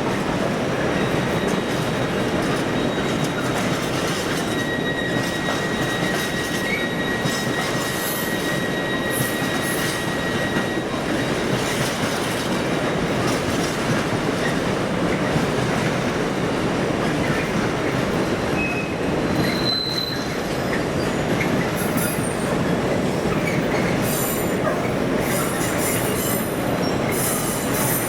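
A train moving through the station, its wheels running on the rails with a steady rumble and clatter. A thin, high-pitched wheel squeal comes in about four seconds in and holds for several seconds, with another short squeal near twenty seconds.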